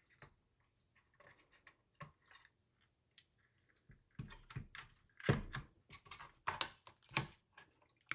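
Plastic and metal clicks and taps from handling the mini PC's bottom cover plate and fan as it is pried loose and lifted off the chassis. A few faint clicks at first, then a quicker run of louder, sharper clicks and knocks through the second half.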